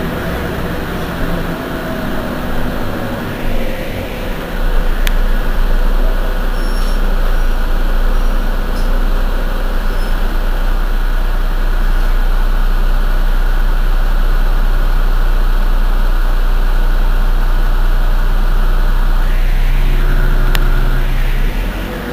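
Heuliez GX 127 city bus engine idling, a steady low drone that grows louder about five seconds in and eases off near the end. A sharp click sounds about five seconds in and another near the end.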